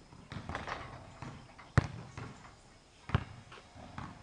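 Basketball bouncing on a hard outdoor court: several separate thuds at irregular spacing, the loudest a little under two seconds in.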